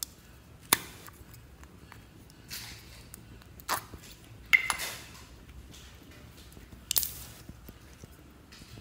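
A small plastic slime pot is handled and opened, with a sharp plastic click about a second in. Then come several short, wet squelches and soft plastic handling sounds, a second or two apart, as the slime is pulled out and pressed.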